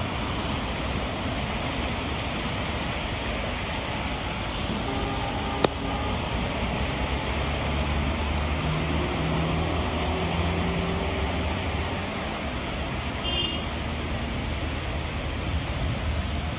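Steady noise of rain and car traffic on a wet road, with a low rumble underneath. One sharp click about five and a half seconds in.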